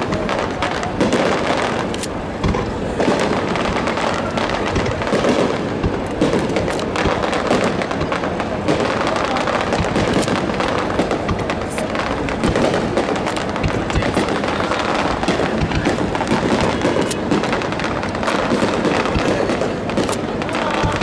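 Fireworks display: aerial shells bursting one after another, a steady run of bangs, pops and crackle with no break.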